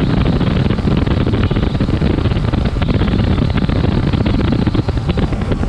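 Bass boat running on open water: loud, rough wind buffeting on the microphone over the low rumble of the outboard motor.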